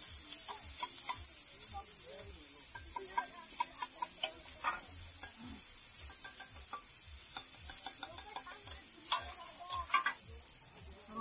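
Oil sizzling on a large flat iron griddle as two metal spatulas scrape and clack against it, stir-frying sliced onions and vegetables. A steady hiss runs under irregular metallic clicks and scrapes.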